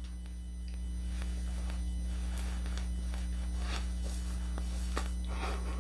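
Steady low electrical mains hum, with a few faint soft rustles.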